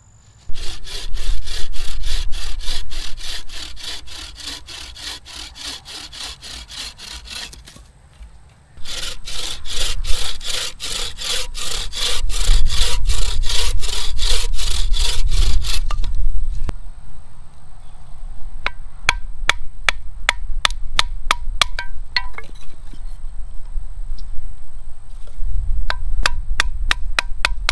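Wooden-frame bucksaw cutting through green branches in fast, even push-pull strokes, in two long runs with a short pause between. After about sixteen seconds the strokes turn lighter and sharper, with short gaps between them.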